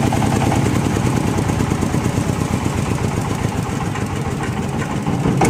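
Engine-driven wood grinding machine running steadily, a continuous mechanical rumble.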